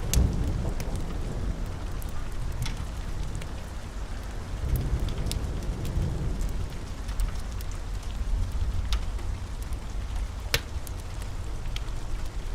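Steady rain with low rolling thunder that swells near the start and again about five seconds in, over scattered sharp crackles and pops from a wood fire in a fireplace.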